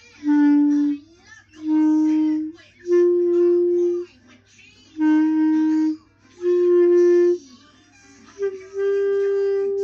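Clarinet playing six separate held notes of about a second each, with short pauses between them, moving among a few low pitches; the last note is higher and held longer.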